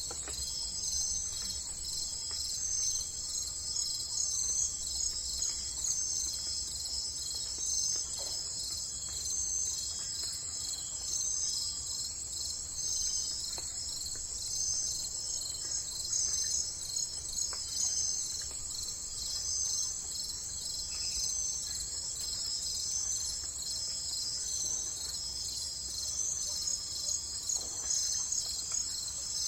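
A steady, high-pitched chorus of insects trilling in an even pulse, like crickets, with a few faint bird chirps here and there.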